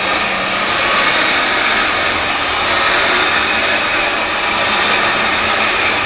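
Heavy-duty lathe machining a paper-mill dryer roll shell: a steady, loud, noisy machining sound that carries on without a break.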